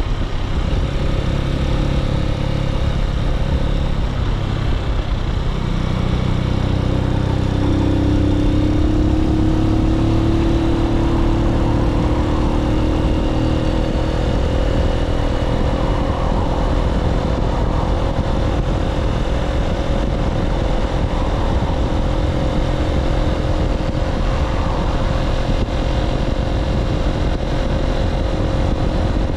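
A Keeway K-Light 125's small V-twin engine running under way at about 35 to 40 mph, its pitch rising a little from about six seconds in as the bike picks up speed, with wind rushing over the microphone.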